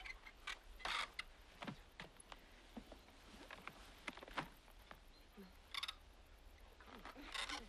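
Faint, irregular light clicks and rustles of handling and movement around a moped at a wire fence, with a few louder rustles about a second in, near six seconds in and near the end.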